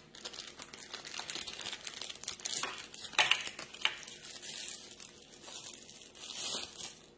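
Thin plastic packaging bag crinkling and rustling as hands unwrap a pair of sunglasses, with a couple of sharper crackles about three to four seconds in.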